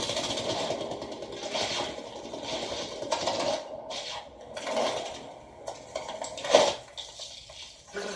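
Animated-film sound effects: irregular scraping, rubbing and rustling with scattered clicks and knocks, and one sharp, loud hit about six and a half seconds in.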